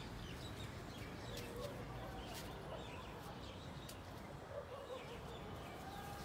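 Faint outdoor background: a steady low rumble with a few short distant calls and light clicks.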